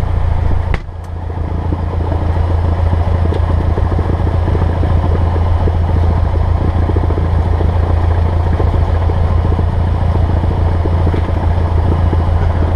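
Cessna 172S's Lycoming IO-360 engine and propeller running steadily at low taxi power, a deep even drone. About a second in there is a click and a brief drop in level before the drone comes back up.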